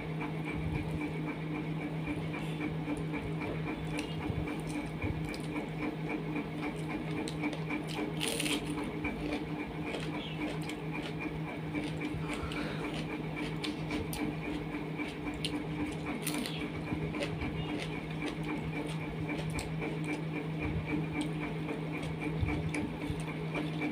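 Eating by hand: rice and curry squished and mixed on a plate, with chewing and scattered short clicks. Under it runs a steady mechanical hum that pulses rapidly.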